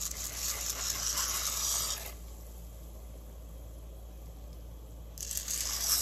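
Dry tapioca pearls poured from a cup into a pot of boiling water, a hissing patter as they hit the water: two pours, one of about two seconds at the start and a shorter one near the end. A steady low hum runs underneath.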